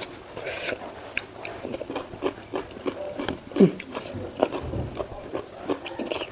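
Close-miked chewing and eating: wet mouth clicks and smacks coming irregularly, with one short louder sound a little past halfway.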